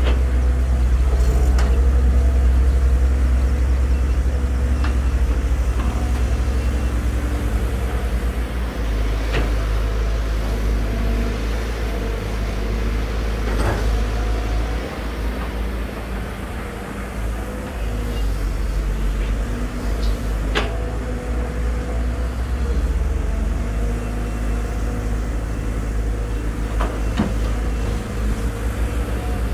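Diesel engines of two hydraulic excavators, a Volvo EC210D and a SANY SY215C, running under load while digging: a steady low rumble with a hum from the engines and hydraulics. A few sharp clanks of bucket on soil and rock come several seconds apart.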